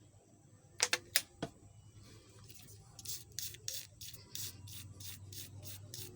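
Hand tools working on a mobile phone's circuit board at the repair bench: a few sharp clicks, then a run of short scratchy strokes, about three a second.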